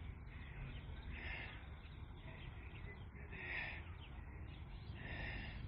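Birds calling in short repeated phrases, about one every two seconds, over a low steady rumble of wind on the microphone.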